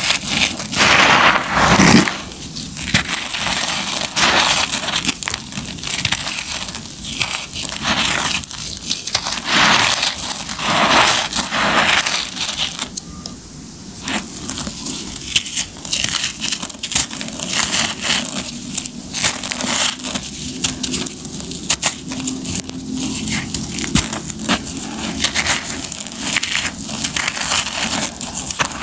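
Dry, crumbly concrete lumps crushed and rubbed apart by bare hands in loose grit: a dense, irregular run of gritty crunches and crackles. Loudest in the first two seconds, briefly quieter about halfway through.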